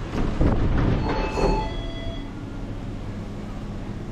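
A metal-framed shop door being pushed open, squealing and rattling for about a second and a half before the noise dies away.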